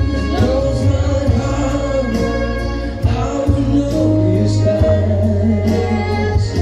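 A song playing, with a singing voice over a steady bass line and accompaniment.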